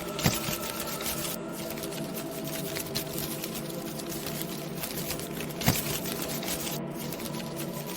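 Halloween ambience track: a dense, continuous crackle over a steady drone of several held tones, with two louder sharp pops, one just after the start and one a little before six seconds in.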